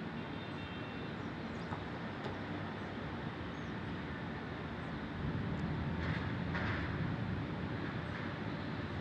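Steady hum of city traffic. A louder, deeper rumble sets in about five seconds in, like a heavy vehicle passing.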